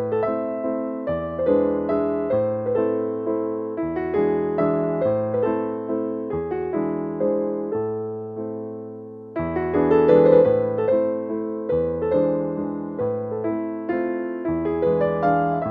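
Background piano music: a gentle melody of notes struck about twice a second, each fading away, with a brief lull about nine seconds in before a new phrase starts.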